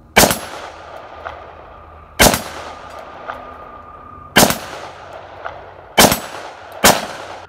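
Five pistol shots, the first four about two seconds apart and the last two close together, each with an echoing tail.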